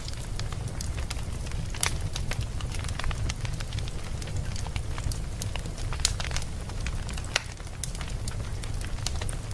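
Wood fire burning in a fireplace, crackling with irregular sharp pops over a steady low rumble; the loudest pops come about two seconds and six seconds in.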